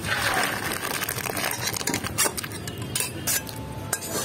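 Cooked mung dal water pouring from a pot into a steel bowl, a steady splashing rush for about the first second and a half. Then a metal spoon clinks and scrapes against a steel pan several times.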